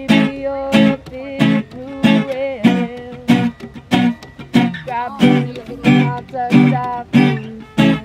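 Archtop guitar strummed in a steady rhythm, about three chord strums every two seconds, each chord ringing on into the next.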